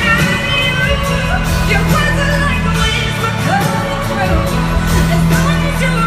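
Live pop ballad: a woman singing over steady instrumental accompaniment, loud and continuous.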